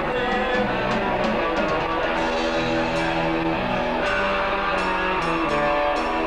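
Rock band playing live, guitar to the fore over drums, with held notes changing every half second or so and sharp drum or cymbal strikes.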